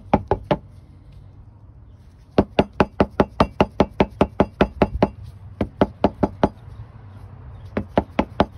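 Rapid, sharp knocking from a hard object being tapped, about five knocks a second, in three runs: a short run of four at the start, a long run of about twenty, and a run of five near the end.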